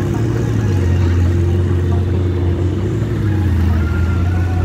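A car engine running steadily with a low, even hum.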